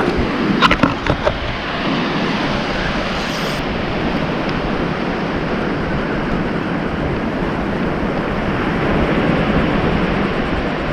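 Steady ocean surf with wind buffeting the microphone, and a few short sharp clicks about a second in.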